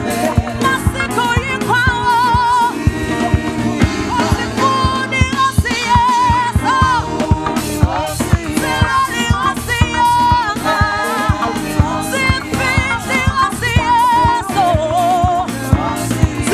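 Live gospel singing by a vocal group, a lead voice with vibrato and backing voices, over a band with a steady drum-kit beat and bass guitar.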